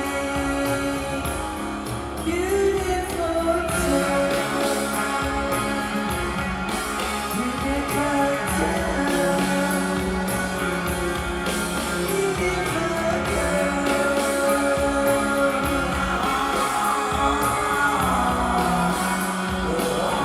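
A rock band playing live, with a singer's voice over the band.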